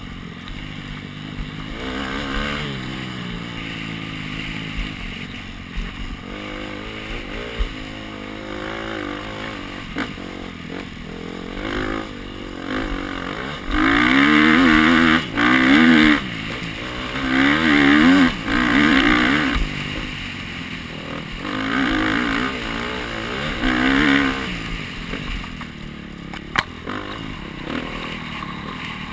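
Dirt bike engine heard from on the bike, revving up and down in repeated climbs in pitch as the rider works the throttle and gears. Several hard, loud full-throttle pulls come through the middle, easing off toward the end.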